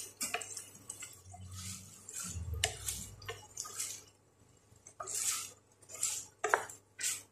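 Wooden spatula stirring and scraping a saucy squid stir-fry around a stainless steel pan: a string of irregular scrapes and light knocks against the metal.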